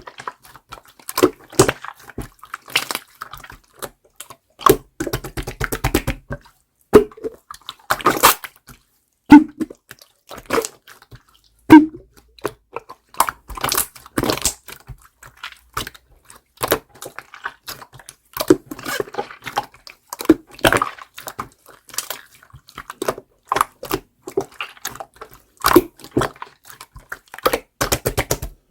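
Clear slime being squished, poked and stretched by hand: an irregular run of sticky pops, clicks and squelches.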